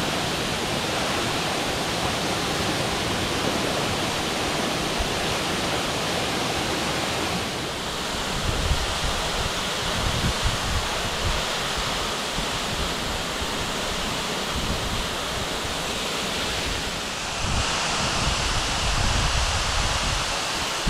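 Waterfall pouring steadily onto boulders and into a pool, a constant rush of water. From about a third of the way in, low irregular gusts of wind buffet the microphone.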